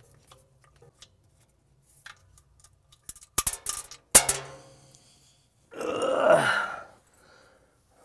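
Small clicks and taps of a screwdriver and wire nuts handled at the saw motor's wiring box, with a sharp clack about four seconds in. About six seconds in comes a man's short vocal sound, about a second long and falling in pitch.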